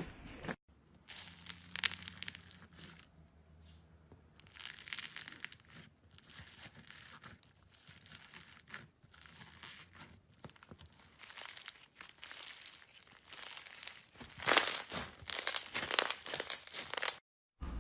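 Slime being squeezed and worked by hand, making crinkling, crackling sounds in irregular bursts that are loudest in the last few seconds.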